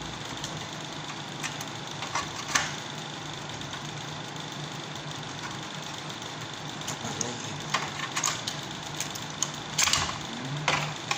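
Steady mechanical hum with a faint high whine, and scattered light clicks and knocks of parts being handled.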